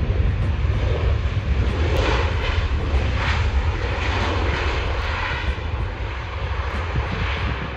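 Jet engines of a Boeing 737 airliner running as it rolls along the runway: a steady rushing jet noise over a deep rumble.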